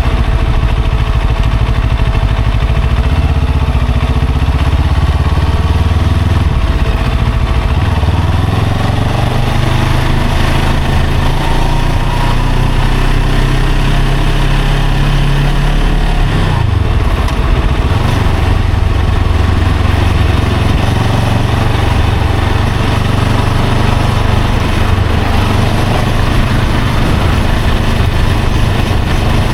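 A vehicle engine running while moving through traffic. Its low hum dips in pitch about sixteen seconds in, then settles back to a steady run.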